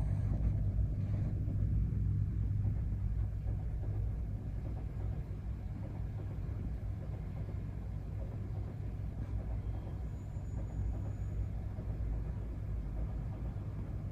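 Low, steady rumble of a Shinkansen bullet train rolling slowly past on the tracks below, heard through an open window over the hum of the city; it is a little louder in the first few seconds.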